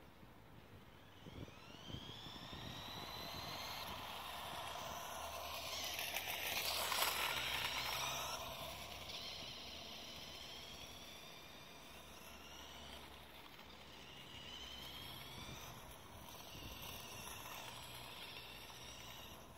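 Electric drive of a LEGO RC motorcycle whining, its pitch rising and falling as it speeds up and slows, with tyre noise on asphalt. It is loudest about seven seconds in, where the bike passes closer.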